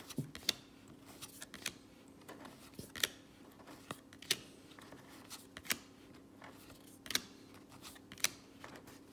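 Trading cards being flipped through one at a time, each card giving a light snap or flick about every second and a half, over a faint steady hum.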